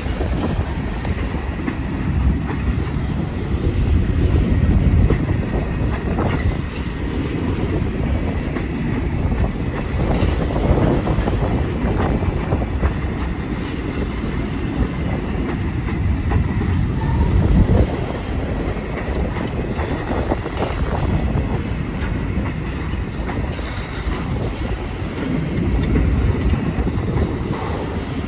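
A train rolling past, its cars giving a steady low rumble with scattered clicks of wheels over the rail joints.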